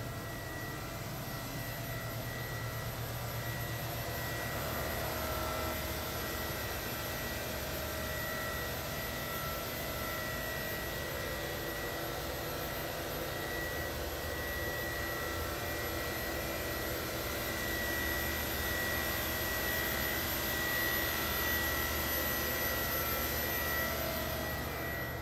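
Steady hum and high whine of a motor yacht's onboard machinery: a low drone under constant high-pitched tones, a little louder near the end.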